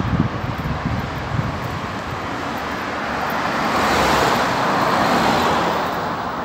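A car passing on the road alongside. Its tyre and engine noise swells to a peak about four to five seconds in, then fades.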